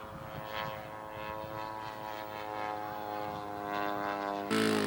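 Radio-controlled scale model airplane engine and propeller in flight: a steady, even drone. Near the end it changes abruptly to a louder engine sound whose pitch falls.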